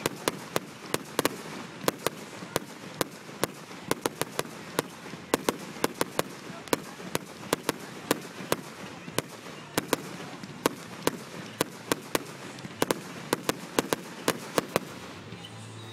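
Consumer firework cake firing shot after shot: a rapid, irregular string of sharp bangs, several a second. The bangs stop shortly before the end.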